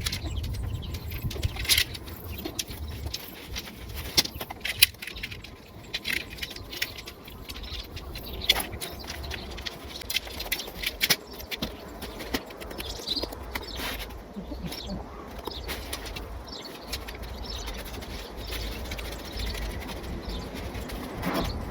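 Tent poles clinking and clicking together as they are joined and fed through, with scattered rustles of handled fabric, over a low steady rumble.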